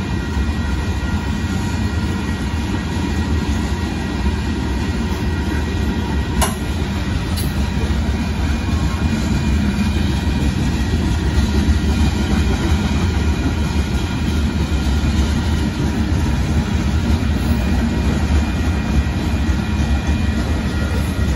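Loaded rock cars of a Union Pacific limestone freight train rolling past: a steady, loud rumble of steel wheels on rail with some clickety-clack over the joints. A single sharp click about six seconds in.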